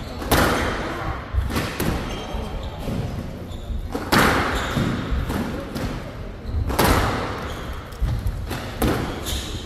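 Squash rally: the ball cracking off rackets and the court walls every second or two, some hits much louder than others, each echoing briefly in the hall.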